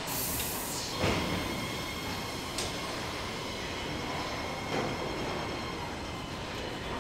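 Car assembly-line machinery: a steady mechanical rumble and hum, with a short burst of hissing air at the start, a thump about a second in, a sharp click, and another knock near the five-second mark.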